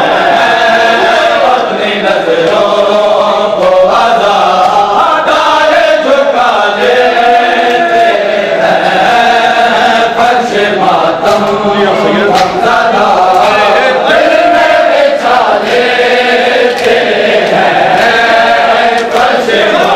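A large group of men's voices chanting a Shia mourning chant (noha) together, with sharp slaps of hands striking bare chests in matam.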